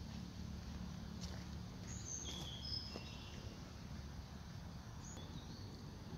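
Outdoor ambience: a steady low rumble, with a cluster of short, high whistled chirps about two to three seconds in and a few more near five seconds. A couple of faint clicks.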